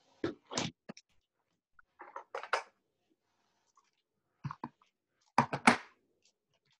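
Short clicks, taps and rustles of stamping supplies being handled, in a few separate groups with the loudest near the end.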